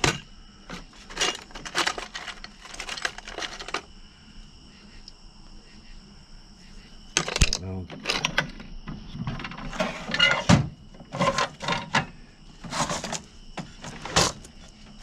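Loose metal sockets and wrenches clinking and rattling as a drawer of a steel tool chest is pulled out and its contents handled, in irregular bursts with a lull about four seconds in.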